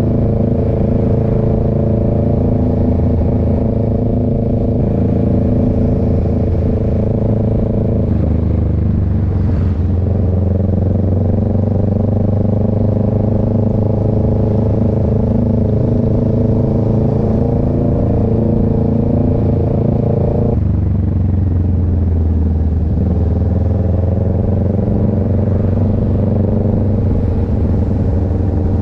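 Motorcycle engine running at a steady cruising speed. Its note shifts about eight seconds in and again about twenty seconds in.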